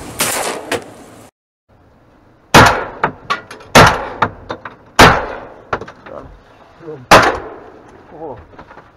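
Shotgun blasts: three loud shots a little over a second apart, then a fourth about two seconds later, with lighter clicks and knocks between them.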